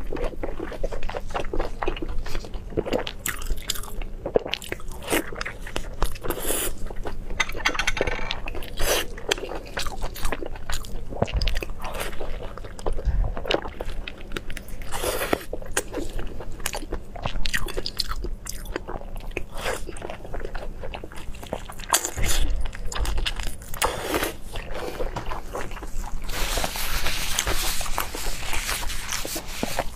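Close-miked eating sounds: repeated bites, wet chewing and crunches, with gloved hands handling sauced food. A longer noisy stretch comes near the end.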